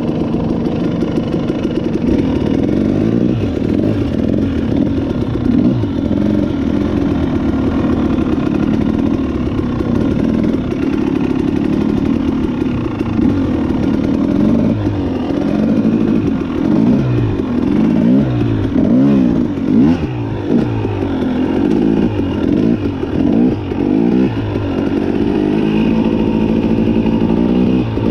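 Dirt bike engine running under way off-road. The revs hold fairly even at first, then from about halfway through climb and drop over and over as the throttle is worked.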